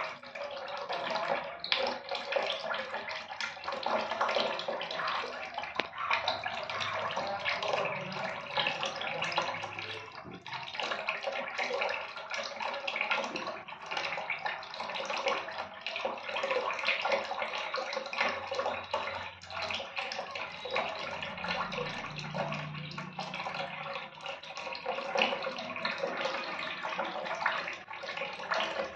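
Water running steadily from a tap into a steel sink, a continuous splashing rush.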